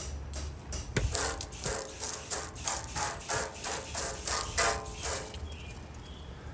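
Brisk back-and-forth scrubbing strokes on the porcelain sink, about four a second, for a few seconds.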